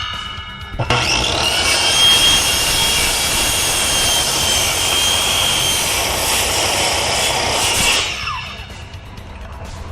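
Power saw cutting an opening through a mobile home skirting panel. The saw starts about a second in, runs steadily with a high whine, and stops about eight seconds in.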